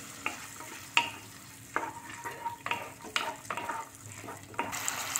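Wooden spatula stirring in a kadhai of nuts and dal tempered in ghee, with several separate scrapes and knocks against the pan. Under it a soft sizzle of the tempering with lemon juice just added, growing louder near the end.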